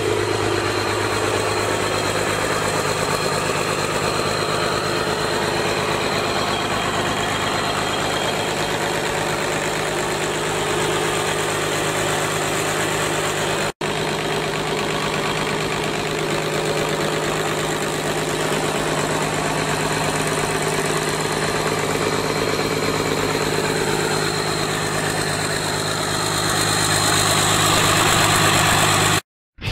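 Freshly rebuilt Mercedes-Benz OM366 inline-six diesel engine running steadily at idle on its test run, with a brief break about 14 seconds in. It grows a little louder near the end.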